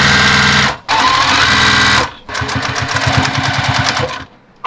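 JUKI sewing machine stitching a sleeve seam in three runs with short stops between, the motor whine rising in pitch as each run starts and the needle beating fast and evenly.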